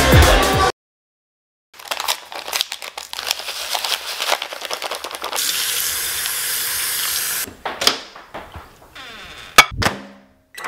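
Kitchen tap running into a plastic bowl of rolled oats, a steady hiss of water for about two seconds, with clicks and rustles of handling before and after. Near the end comes one sharp click as the oatmeal is set in the microwave, with presses on its keypad. The gym montage's music cuts off in the first second.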